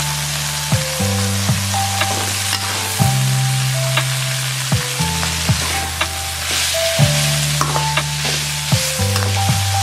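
Stir-fry sizzling in a wok, with a metal spatula scraping and clicking against the pan as the meat and vegetables are tossed. Background music with a low steady bass line and a simple melody plays under it.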